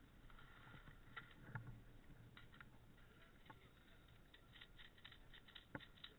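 Near silence: faint rustling with scattered small clicks and taps, more frequent in the last couple of seconds.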